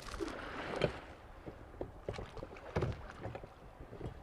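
Sounds aboard a drifting boat on a river: a low wash of moving water with scattered small knocks and clicks, and a couple of slightly louder thumps about a second in and near three seconds.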